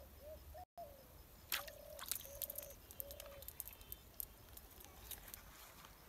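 A dove cooing, a run of short low coos in the first half, with scattered sharp clicks and crackles through the middle.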